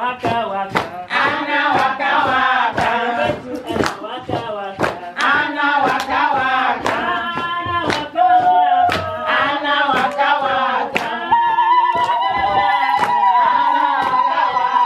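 A group of women singing together and clapping in time, about two claps a second. From about eleven seconds in, a long high steady note is held over the singing.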